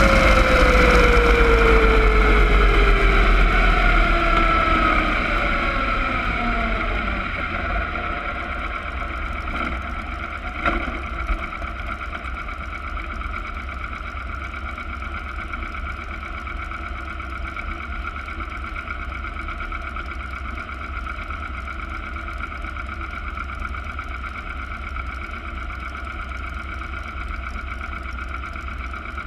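Front-engined slingshot dragster coasting down after its run: the engine and drivetrain whine falls steadily in pitch and fades over the first several seconds. It then runs steadily at low speed as the car rolls back, with two brief knocks about ten seconds in.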